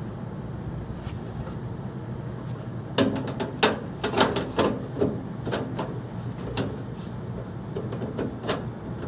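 A series of sharp clicks and knocks, thickest from about three seconds in, over a steady low hum. They come from hands fitting the front fan cover back onto a split AC outdoor unit.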